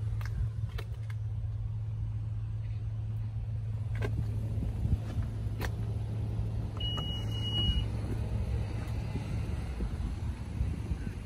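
A single steady electronic beep about a second long, roughly seven seconds in, from the 2020 Honda Odyssey's power tailgate as its button is pressed. It sounds over a steady low hum, with a couple of faint clicks just before.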